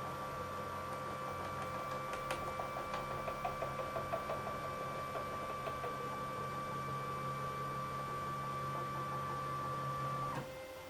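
The axis drive of a home-built CNC milling machine running at constant speed: a steady motor whine and hum at an unchanging pitch. A light, rapid rattle of about five beats a second joins in for a few seconds in the middle. The sound cuts off shortly before the end.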